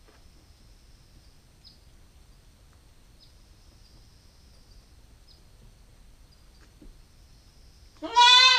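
A nine-week-old Nubian goat kid gives one loud bleat near the end, rising in pitch as it starts. Before it there are only faint high chirps every second or so.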